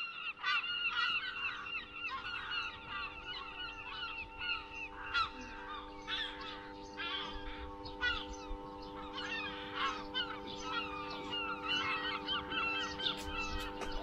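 Dense, rapid calling of many birds, honk-like, over a steady drone of several held tones. Both start and stop abruptly.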